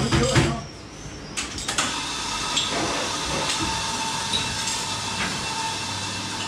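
Café espresso machine's steam wand hissing steadily, starting about two seconds in, with faint steady tones running through the hiss: milk being steamed.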